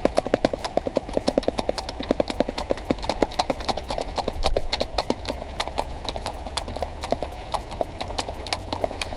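AI-generated sound effect from Meta Audiobox of a horse running on a road: fast, steady hoofbeat clip-clop that keeps an even pace throughout.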